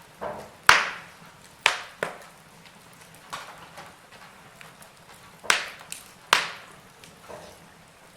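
Firewood burning in a fireplace, crackling, with four loud sharp pops (two in the first two seconds, two more past the middle) among softer scattered crackles.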